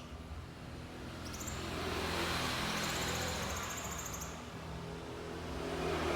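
A vehicle passing, its noise swelling for a couple of seconds and rising again near the end, over a steady low hum. A thin, very high, rapidly pulsing trill sounds above it in short runs.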